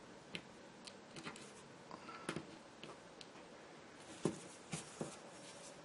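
Faint, scattered small clicks and taps of fingers handling an electrolytic capacitor and its wire leads on a plastic solderless breadboard. The sharpest click comes a little past four seconds in.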